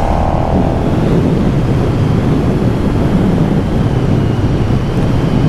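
KTM 1290 Super Duke R Evo's V-twin engine running at a steady cruising speed, heard through heavy, even wind rush on the helmet-mounted camera's microphone.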